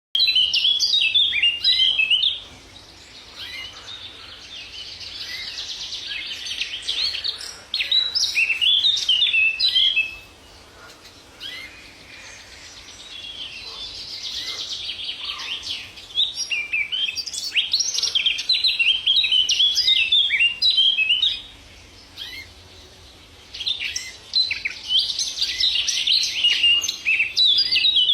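Domestic canary singing: long runs of quick trills and warbles, loud bursts alternating with quieter rolling passages.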